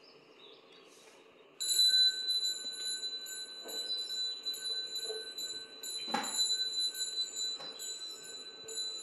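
A small bell rung as part of Buddhist chanting (yeombul). About a second and a half in it is struck and keeps up a high, steady ring, with a few more sharp strikes along the way, the loudest about six seconds in.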